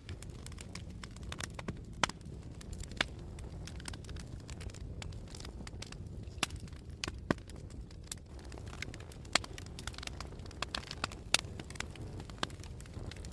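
Wood fire burning in a fireplace: irregular sharp crackles and pops over a steady low rush of the flames, with a few louder pops about two, three, seven, nine and eleven seconds in.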